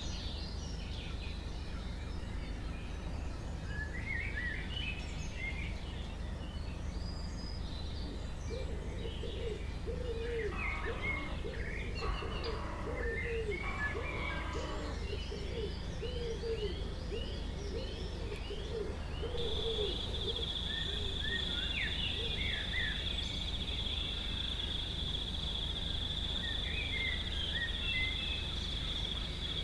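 Outdoor ambience of songbirds chirping and calling over a steady low rumble, with a run of lower repeated calls in the middle. About two-thirds of the way in, a steady high-pitched trill starts abruptly and carries on.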